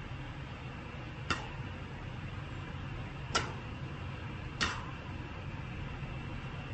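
Three short, sharp clicks, spaced one to two seconds apart, over a steady low hum of room noise.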